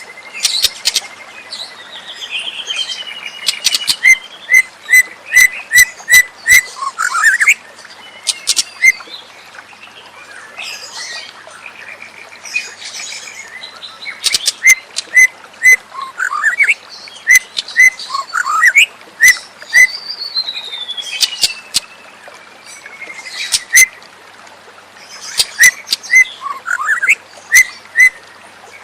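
White-rumped shama singing in loud bursts: runs of short whistled notes repeated about two a second on one pitch, mixed with rising and falling whistles and sharp clicking notes. There is a quieter gap of a few seconds partway through.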